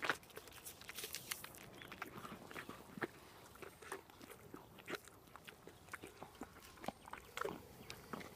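Pony chewing and crunching pieces of apple, with irregular soft crunches and clicks, the loudest right at the start.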